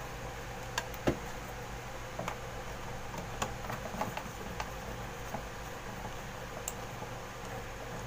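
Light clicks and taps of wires being pushed and fastened into a plastic call point's screw terminals, with one sharper click about a second in, over a steady low hum.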